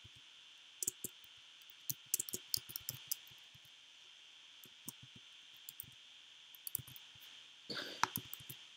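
Computer keyboard keys clicking in scattered runs as a word is typed, faint over a steady hiss, with a short rustle near the end.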